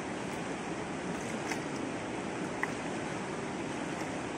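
Steady rushing of a fast, swollen river running over shallow rapids, with two faint brief ticks about a second and a half and two and a half seconds in.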